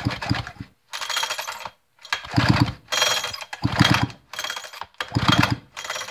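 Sachs-Dolmar chainsaw's recoil starter rope pulled gently over and over, about six short pulls, each spinning the engine over with a fast low chugging and the starter's rattle. With the spark plug out, the engine turns freely while a few drops of oil are worked around a cylinder left dry by four years of storage.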